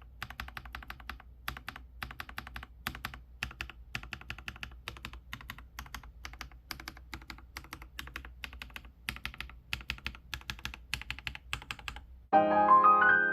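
Typing on a Monstargear Ninja 108 Pro mechanical keyboard with fully lubed switches: a steady stream of soft key clicks. Piano music starts suddenly near the end.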